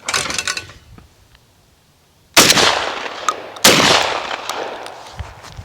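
Two shotgun shots fired about a second and a quarter apart, each echoing and fading slowly.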